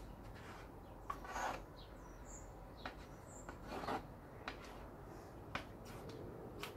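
A spatula scraping and sliding through wet acrylic paint in a tray, as the paint is gathered from the edges into the middle: a few short faint scrapes, then several light clicks as it knocks the tray's rim. Two faint high chirps come about two and three seconds in.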